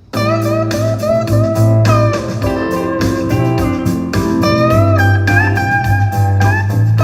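Music starting suddenly, played loud on a portable Bluetooth speaker: guitar lines that slide in pitch over a strong, steady bass.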